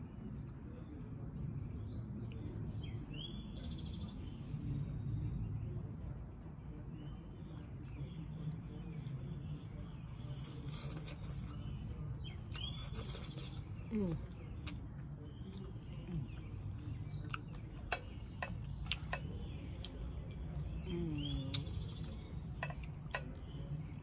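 Small birds chirping repeatedly over a steady low background hum, with sharp clicks of a metal fork against a ceramic baking dish and the sounds of spaghetti being eaten.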